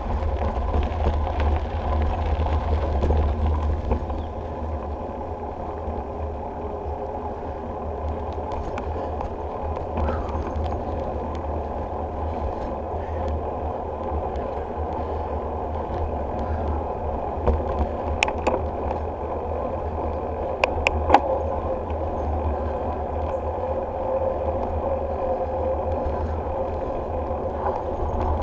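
Bicycle ride on a trail: a steady rumble of wind and tyres, rougher at first on gravel, then smoother on pavement. A few sharp rattles come from bumps about 18 and 21 seconds in.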